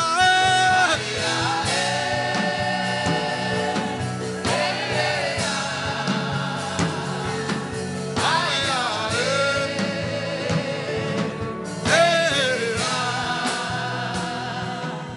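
Gospel worship music: singing voices holding long, wavering notes over instrumental backing with a steady beat.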